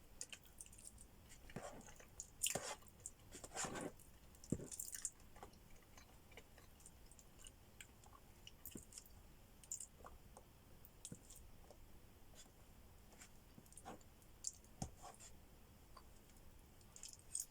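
A person chewing food, with faint wet mouth clicks throughout and a few louder bites about two to five seconds in.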